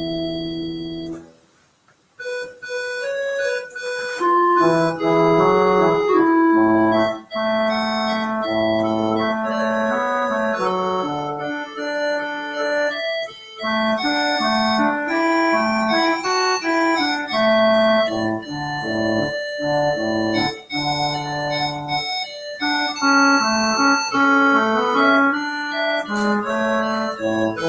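Organ music: a held chord that cuts off about a second and a half in, a short pause, then a line of sustained notes over changing chords.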